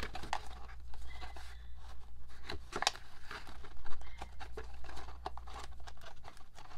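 Photocards and paper album inclusions being handled and shuffled: irregular light rustling, clicks and scrapes.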